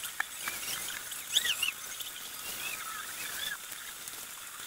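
Small birds calling over the rooftops: many short, high chirps and squeaky glides, with a louder cluster of calls about a second and a half in, over a steady faint hiss.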